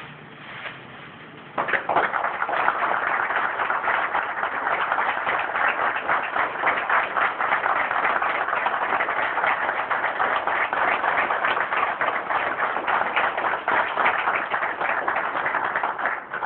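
Applause from the gathered people, a dense, steady clapping that starts suddenly about a second and a half in and fades out near the end.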